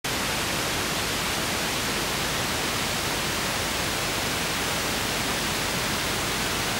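Steady, even hiss of recording noise, with no other sound standing out.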